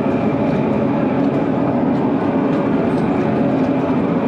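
Jet ski engine running steadily, a continuous drone.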